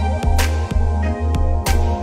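Music with a heavy bass line and a steady drum beat.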